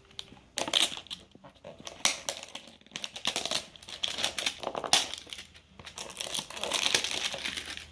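Crinkling foil packaging of a Funko Mystery Minis blind-box figure, handled and pulled open by hand, in irregular crackly bursts.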